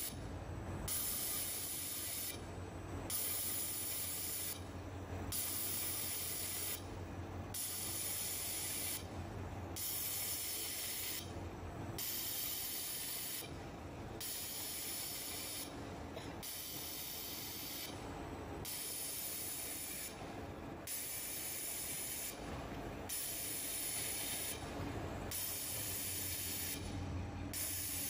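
Fiber laser welding stainless steel sheets, heard as a hiss in repeated bursts of about two seconds with short breaks between them, over a steady low machine hum.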